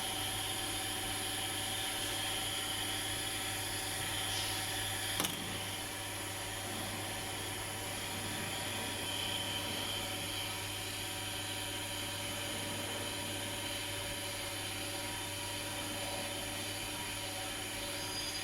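Steady machine hum made of several constant tones, with a single sharp click about five seconds in.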